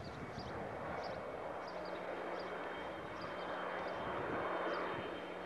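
Distant engine noise of something passing, a broad steady rush that swells to its loudest about four to five seconds in and then eases off.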